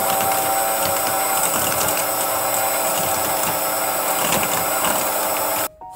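Electric hand mixer running at a steady speed, its beaters creaming butter, sugar and eggs in a stainless steel bowl, with a steady motor whine; it switches off abruptly near the end.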